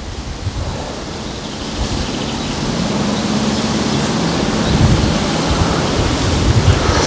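Steady wind rushing across the microphone, with a fluctuating low rumble of buffeting underneath.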